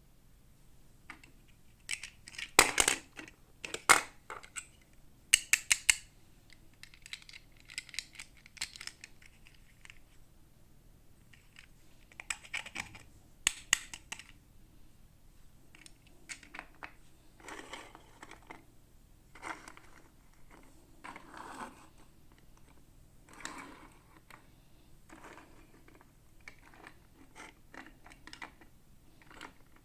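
Hands unpacking small plastic toy pieces and packaging: scattered sharp clicks and taps, loudest in clusters near the start and again in the middle, with softer rustling and scraping between.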